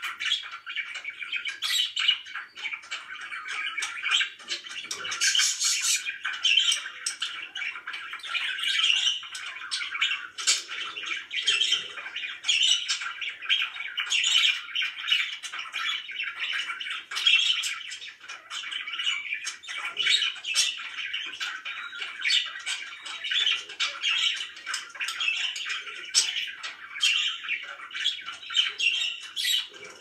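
Several pet budgerigars chattering and chirping without pause, a dense stream of short overlapping calls.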